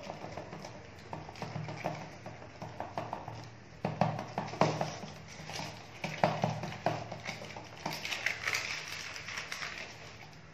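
Hands patting and pressing ragi (finger millet) dough flat on an oiled plastic sheet: a run of soft slaps and taps, loudest about four and six seconds in. Near the end the plastic sheet crinkles as it is folded back.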